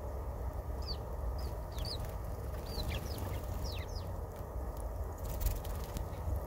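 Small birds chirping: several short, high notes that drop in pitch, clustered in the first few seconds, over a steady low rumble.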